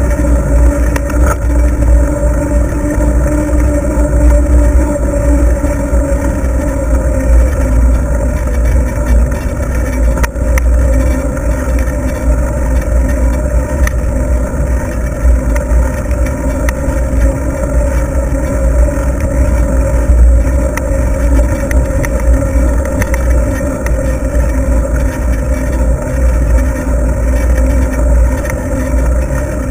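Wind buffeting the microphone of a bicycle-mounted camera while riding, heard as a heavy low rumble, with a steady hum from the bicycles rolling on pavement and a few faint clicks.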